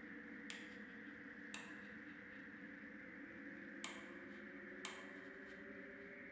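A handheld torch's switch clicking on and off four times at uneven intervals, each click sharp with a short echoing tail. Underneath is a faint steady drone with one tone slowly rising.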